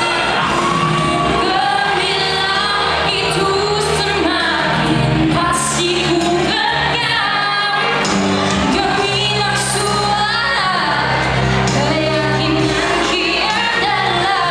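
A woman singing a Malay song solo into a handheld microphone, over instrumental accompaniment.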